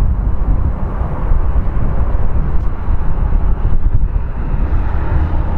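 Boeing 747-400 freighter's four Rolls-Royce RB211 engines on final approach, a steady low rumble.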